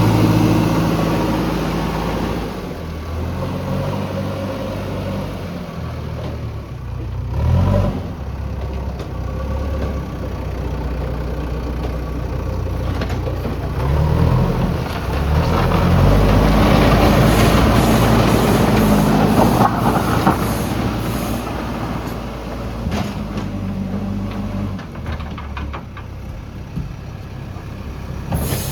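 JCB backhoe loader's diesel engine running under load, its revs rising and falling several times, loudest about two-thirds of the way through.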